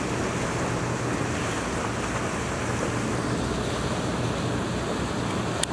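Steady rush of wind buffeting the microphone and water washing past the hull of a moving wooden schooner, with a faint steady low hum underneath. A single short click comes near the end.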